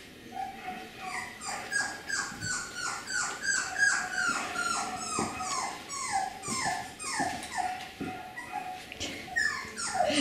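Young beagle puppy whimpering: a quick run of short, high cries, each falling in pitch, about two or three a second, starting about a second in and going on until shortly before the end.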